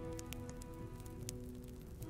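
Firewood crackling in a stove, with scattered sharp pops several times a second, over soft background music holding sustained notes.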